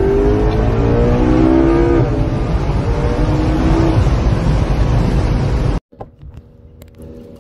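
Sports car engine revving hard under acceleration, its pitch climbing, dropping at a gear change about two seconds in, then climbing again, over loud road and wind noise. It cuts off suddenly near six seconds, giving way to a much quieter, steady engine hum.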